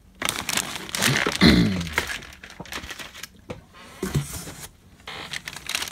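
Clear plastic bags crinkling and rustling as bagged plastic model parts are handled, with a few knocks of the parts against one another.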